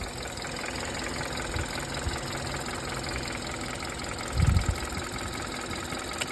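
2012 Hyundai Accent's engine idling steadily, with one brief low thump about four and a half seconds in.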